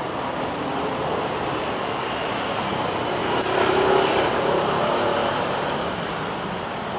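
Steady street traffic noise, swelling briefly about halfway through.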